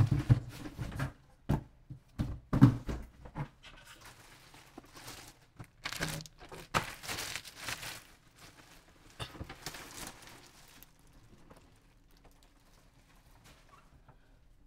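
Clear plastic packaging bag crinkling and rustling in irregular bursts as it is pulled off a new printer, with a few handling knocks against the cardboard box; it dies down after about eleven seconds.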